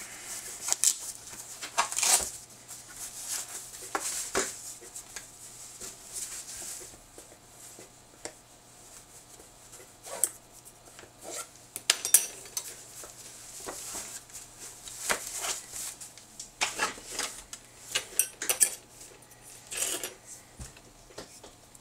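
Metal dental instruments clinking and clattering as they are picked out and handled, in scattered, irregular sharp clinks.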